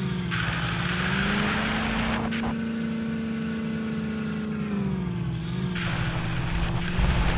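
Vehicle engine running steadily with a low hum, its pitch rising slightly about a second and a half in and dropping back about five seconds in.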